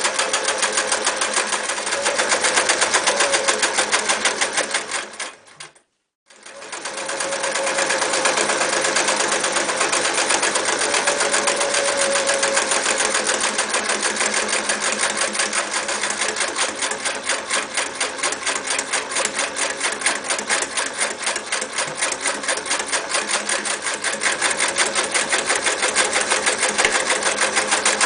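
Singer 315K electric sewing machine running fast, stitching with a rapid, even ticking. About six seconds in it winds down to a brief stop, then starts up again and runs on steadily.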